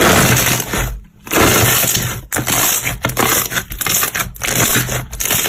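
Slime being squeezed and crushed by hand close to the microphone: a loud, dense crackling noise that drops out briefly about a second in and again a little after two seconds, with shorter breaks after that.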